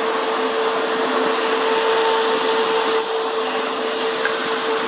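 Steady machine drone: a constant whine held at one pitch over an even rushing hiss, with no change in level.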